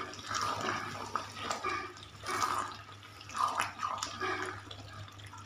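A spoon stirring thick, creamy beef karahi gravy in a metal pan, giving wet sloshing and squelching in irregular strokes about once a second. A steady low hum runs underneath.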